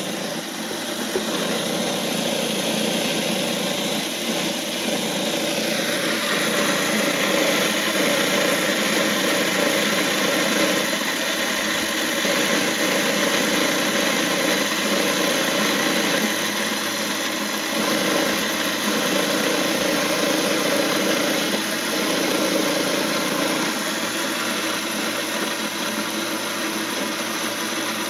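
Vevor 3000 W electric grain mill running steadily, its motor humming under the grinding of dry deer corn into coarse chicken feed.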